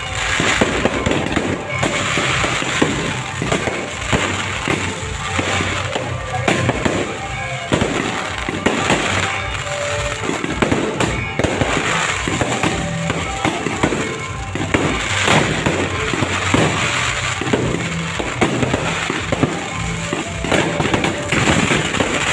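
Fireworks going off in rapid, continuous succession: many bangs and crackles close together, with music playing underneath.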